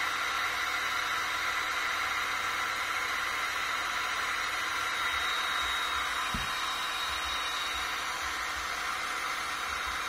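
Seekone electric heat gun running steadily, its fan blowing hot air with an even rushing hiss and a faint high whine. There is a brief low bump about six seconds in.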